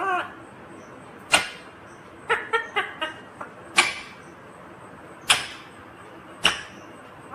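Ringneck parakeet giving short, sharp squawks, about one every second or so, with a quick run of four together near the middle.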